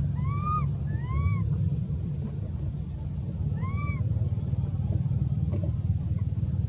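A steady low rumble, with short squeaky calls over it, each rising and then falling in pitch, heard three or four times in the first half and once more about four seconds in.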